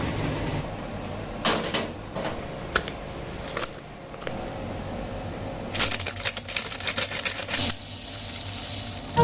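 Small hard objects being handled, giving a run of light clicks and clatters. The clicks come in scattered ones and twos early on and crowd together about six to seven and a half seconds in.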